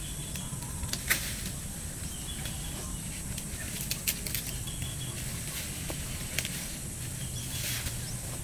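A few sharp snaps and rustles of leafy shrub shoots being broken off by hand, about a second in, around the middle and near the end, over a steady high-pitched drone of insects.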